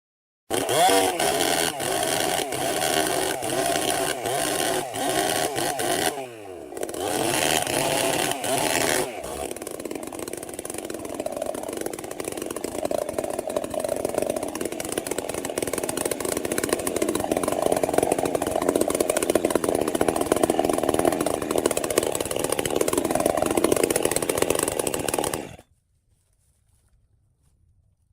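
Two-stroke chainsaw running at high revs. About six seconds in the throttle eases off and the pitch falls, then rises again. The tone changes and steadies from about nine seconds in before the sound cuts off abruptly near the end.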